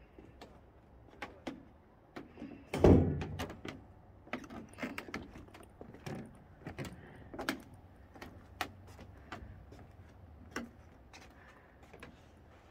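Footsteps and knocks on wooden deck boards: irregular taps and clicks, with one loud thump about three seconds in.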